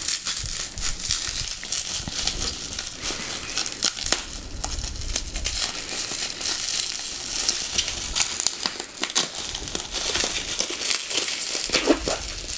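Plastic bubble wrap crinkling and crackling under the fingers as they pick at the taped wrapping around a lightsaber hilt, a continuous run of many small sharp clicks.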